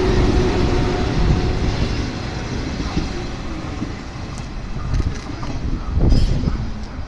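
Orange JR 103 series electric commuter train running along the track, its wheel and motor rumble fading steadily as it pulls away.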